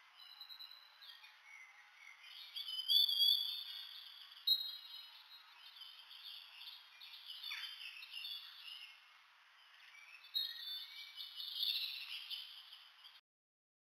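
Wild natural ambience: many high chirps and short whistled calls over a steady hiss, ending abruptly about a second before the end.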